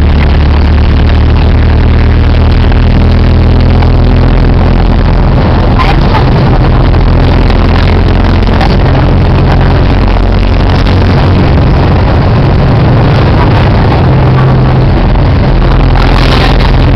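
Car engine and road noise heard from inside a moving car: a loud, steady low engine drone under a constant rush of tyre and wind noise, the engine pitch stepping up and down a few times.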